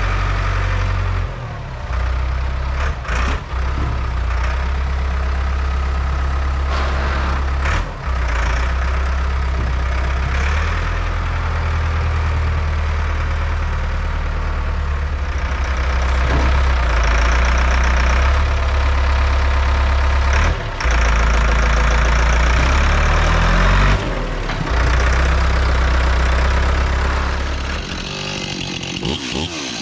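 STIHL chainsaw running and cutting through large, soft, water-soaked logs. The engine note is steady, with brief dips about 1.5, 8, 20 and 24 seconds in.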